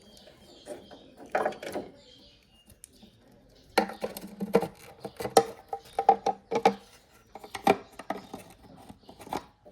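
Plastic clicks and knocks as taillight bulb sockets are pushed into the holes of a truck's taillight housing, a quick irregular run of sharp clicks that thickens about halfway through.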